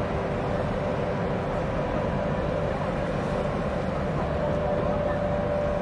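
Steady drone of a boat's engine heard on board while under way, with a faint steady whine over it and no breaks.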